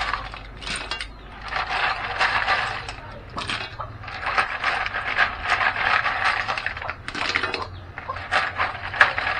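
Snail shells clattering in rapid bursts of clicks as handfuls are scooped from a plastic bowl and dropped into a pan. The clatter comes in several waves with short pauses between them, and there is a sharper click near the end.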